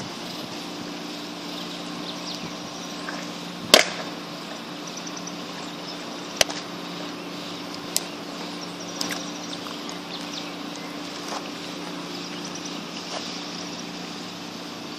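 Baseball popping into a catcher's mitt: one loud sharp smack about four seconds in, followed by several fainter sharp clicks over the next ten seconds. A steady low hum and faint high chirps run underneath.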